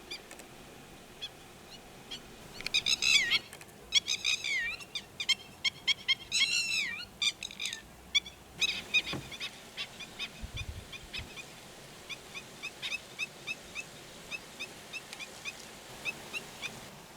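Black-winged stilts and red-wattled lapwings giving shrill alarm calls over a stilt nest site. Loud, harsh, downward-sweeping calls come in clusters a few seconds in, then settle into a steady series of short, sharp calls about twice a second.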